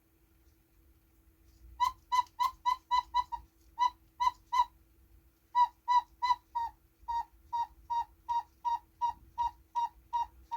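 Cuckoo clock bellows sounding its whistle pipe: short hooting notes all on one pitch, starting about two seconds in and coming in quick runs of about three or four a second, with brief pauses between runs. The bellows has just been re-covered and refitted.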